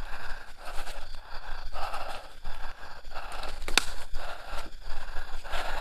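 A man breathing heavily into the microphone: laboured breaths in and out about once a second. A sharp click is heard near the end.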